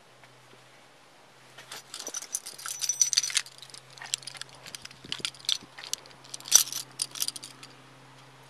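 Metallic jingling and clinking in irregular clusters, like keys or loose metal gear shaken by someone on the move, loudest about three seconds in and again near six and a half seconds.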